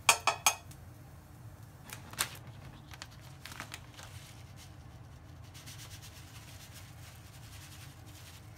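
Metal spatula knocking three times in quick succession against an iron frying pan, each with a short metallic ring, then one more knock about two seconds in and a few lighter clicks as the pan is scraped out and set down. Near the end a faint rustle of a paper bag as sesame seeds are shaken out, over a steady low hum.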